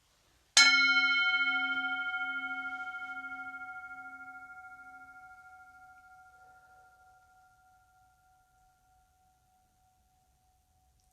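A standing bell of the singing-bowl kind struck once to open the prayer, ringing with a slowly pulsing, wavering tone that dies away gradually over about ten seconds.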